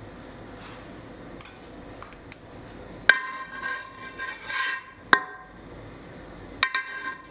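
Cookware clinking: three sharp metallic strikes, about three, five and six and a half seconds in, each ringing on briefly.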